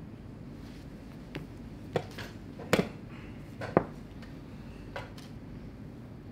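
Wooden chess pieces being set down on the board and a chess clock's buttons being pressed in a blitz game: a handful of sharp clicks and knocks, the two loudest a second apart near the middle.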